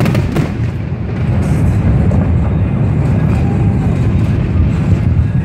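Aerial fireworks going off in a dense barrage, their booms running together into a continuous low rumble, with a few sharp cracks in the first half-second.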